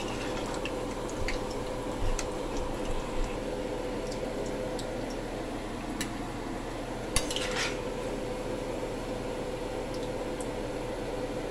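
Besan pakoras deep-frying in oil in a steel kadai, a steady sizzle with small crackles, while a metal slotted spoon scrapes and clinks against the pan as the fried pakoras are lifted out. A few sharper clinks stand out, about 2, 6 and 7 seconds in.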